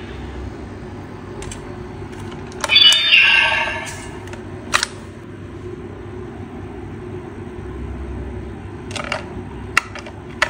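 Plastic clicks and handling of a DX Blazar Brace toy as its stone is taken out and another is fitted: a short louder burst about three seconds in, a single click just before five seconds, and a quick run of clicks near the end.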